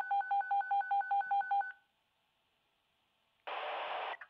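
A rapid string of telephone keypad (DTMF) tones, the same two-note beep repeated about seven times a second for under two seconds. After a short pause comes a half-second burst of radio static.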